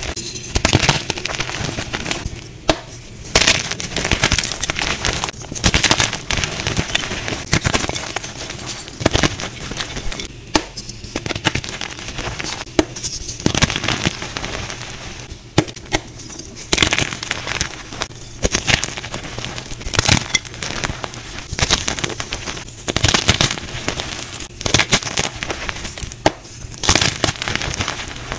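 Dyed gym chalk crunching and crumbling as it is squeezed and crushed by hand: a dense run of crisp crackles and crunches, with louder snaps every second or two.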